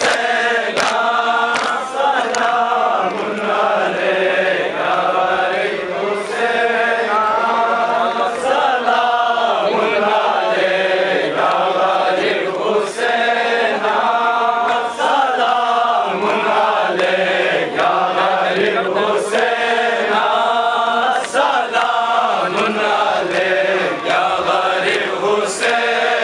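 Group of men chanting a Balti noha, a Muharram lament, in unison, with sharp chest-beating strikes (matam) landing about every two seconds.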